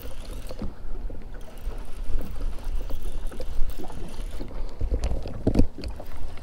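Water lapping against a small fishing boat's hull, with wind buffeting the microphone and a louder bump about five seconds in.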